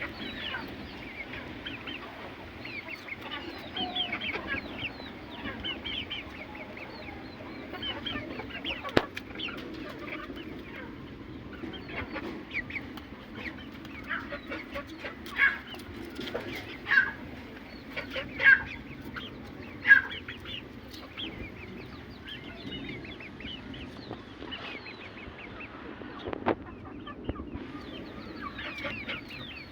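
Aseel chickens clucking and calling continuously, with four louder calls about a second and a half apart in the middle.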